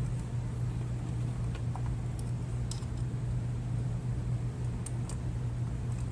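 A steady low hum with a few faint, light clicks scattered through it, from small screws being driven to fasten an oil separator to its mounting bracket.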